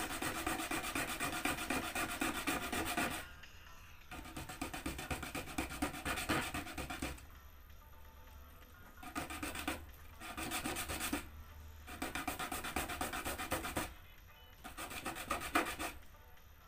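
A small piece of plastic toothbrush handle rubbed by hand on a sheet of sandpaper, shaping a lure: several spells of quick scratchy back-and-forth strokes with short pauses between.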